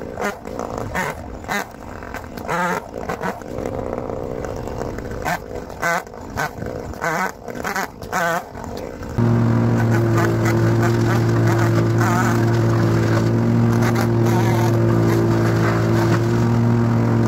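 Engine-powered tree equipment: irregular short revving bursts, then about nine seconds in a loud, steady engine drone at one constant pitch starts abruptly and holds.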